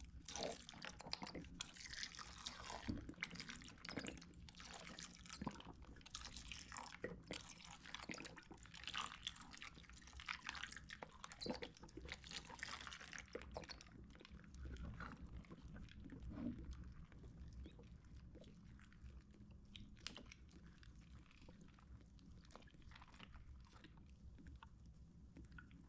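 Faint, sticky wet crackling and clicking of clear water slime being squished and worked by hand. It is dense for the first half, then thins to occasional soft clicks.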